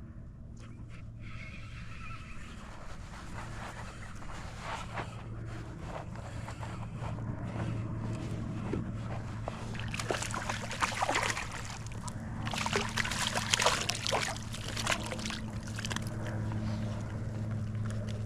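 Water sloshing and splashing around a kayak, busiest about two-thirds of the way through, over a steady low hum.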